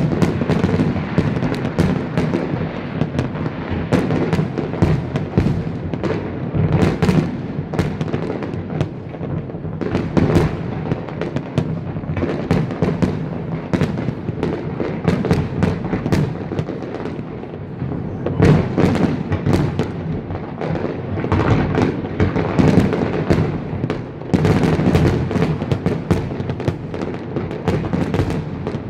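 Fireworks display: a dense, unbroken run of bangs and crackling, with louder clusters of booms every few seconds.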